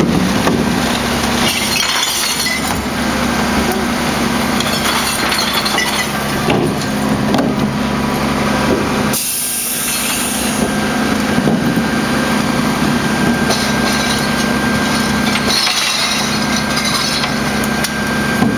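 Rear-loading garbage truck running steadily while bins of glass bottles and cardboard are tipped into its hopper, with several bouts of clattering, clinking glass; the loudest comes about halfway through.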